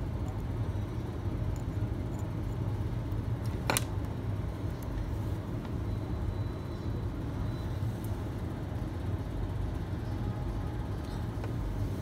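Steady low background rumble and hum, with one sharp click a little under four seconds in.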